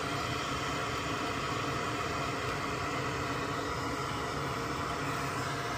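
Soldering fume extractor fan running steadily, an even whirring hiss with a faint hum.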